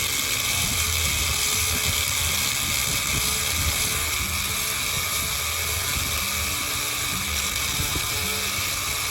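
Diamond bit spinning in a high-speed power tool, grinding steadily into the steel jaws of lineman's pliers to widen the half-round wire-forming groove.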